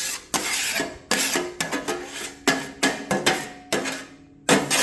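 A scraper dragged in about a dozen short, quick strokes across the flat cooking plate of an electric countertop griddle, scraping it clean; the plate rings faintly after some strokes.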